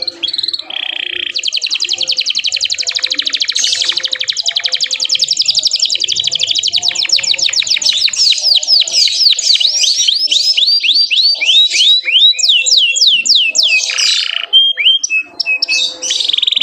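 Domestic canary singing a long, unbroken song. It opens with very fast, buzzing trills, then moves into slower notes that sweep downward, and ends with another quick trill.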